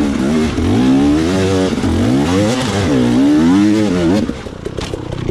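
Dirt bike engine revving up and down again and again as the throttle is worked, its pitch repeatedly rising and falling. A little over four seconds in it drops off to a quieter, fast low putter at low revs.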